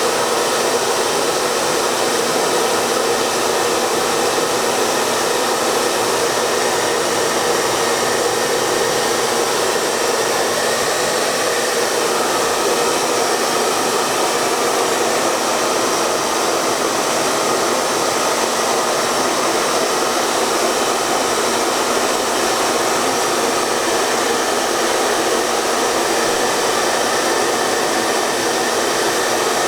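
Hair dryer running steadily: an even rush of blown air and motor, with no change in level or pitch.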